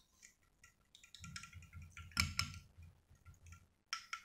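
Small metal spoon stirring thin gram-flour batter in a glass bowl, giving light, irregular clinks and ticks against the glass, the loudest about two seconds in.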